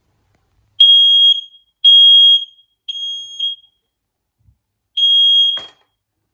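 Smoke detector sounding its test alarm: three loud, high-pitched beeps about a second apart, then a pause and a fourth beep, the start of the temporal-three alarm pattern. The fourth beep ends with a short click.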